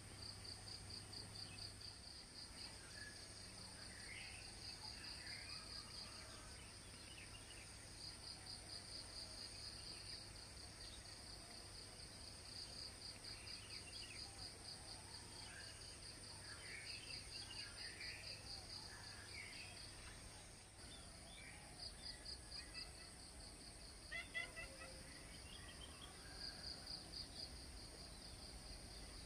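Faint insects chirring in rapid pulsing trills that come in phrases a few seconds long, over a steady high-pitched whine, with scattered short bird chirps, one louder burst of chirps a little past the middle.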